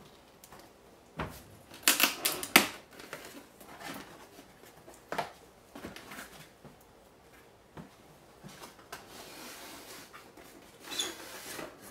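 Cardboard shipping box being opened by hand: a cluster of loud ripping and rustling noises about two seconds in as the taped flaps are pulled apart. Then scattered knocks, scrapes and rubbing of cardboard and a foam tray being lifted out of the box.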